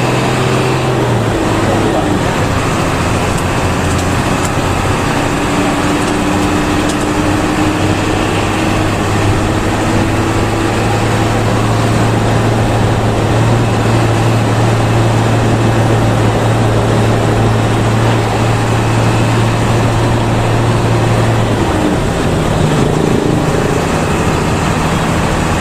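Intercity bus under way: the engine drones steadily over road and traffic noise, and its note shifts to a different pitch about three-quarters of the way through.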